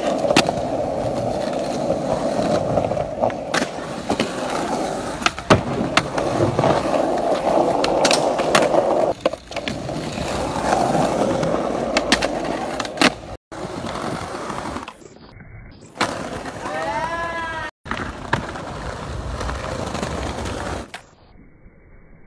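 Skateboard wheels rolling on concrete and the board scraping along a ledge, with sharp clacks of the tail popping and the board landing. The sound breaks off abruptly a couple of times as one clip cuts to the next.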